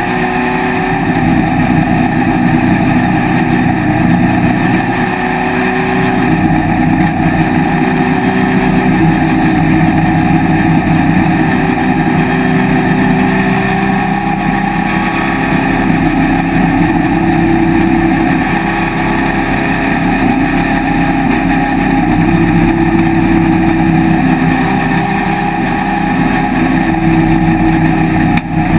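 Vintage open-cockpit race car's engine running hard at racing speed, heard from inside the cockpit with wind rush; the engine note rises and falls as it goes.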